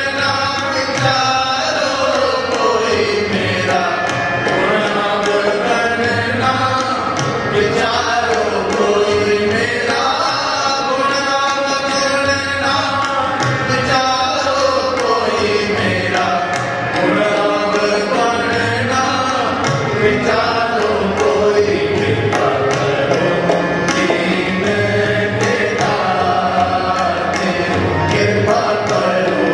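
Sikh shabad kirtan: a male voice sings a gliding devotional melody, accompanied by harmonium and a steady run of tabla strokes.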